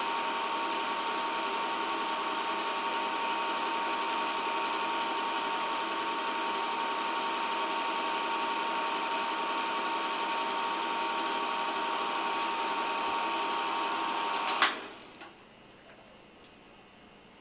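8mm film projector running steadily, with a steady whine over its mechanical noise, then stopping with a sharp click near the end as the film runs out, leaving a low hiss.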